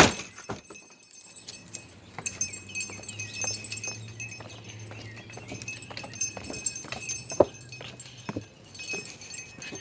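Light metallic jingling and tinkling, with scattered clicks and a low steady hum through the middle several seconds.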